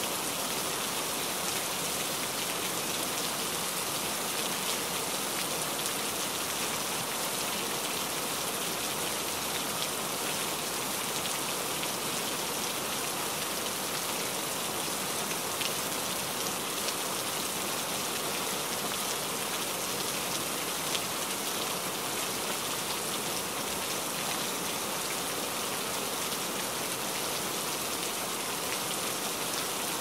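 Steady rain: an even hiss with faint ticks of single drops.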